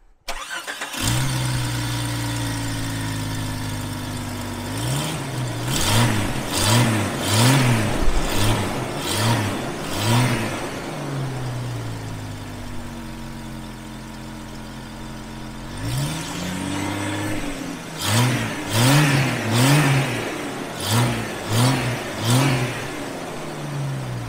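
Jeep Cherokee XJ engine starting up about a second in, then running and being blipped in two runs of about seven quick revs each, with steadier running between. The new cowl intake makes a sucking sound at the startup.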